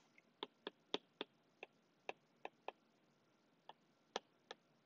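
Faint, irregular tapping of a stylus tip on a tablet's glass screen while handwriting a word, about a dozen light clicks.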